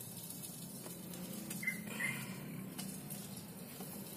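Faint handling noise of wet mud crumbled by hand over a wire-mesh sieve, small clumps pattering down, with two short high chirps about two seconds in.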